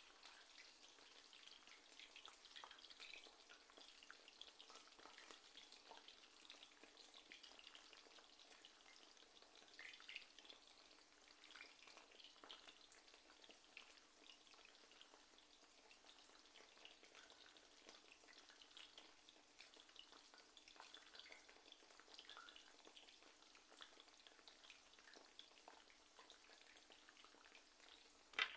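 Faint sizzling and crackling of hot oil as strips of food shallow-fry in a pan, a steady patter of small pops.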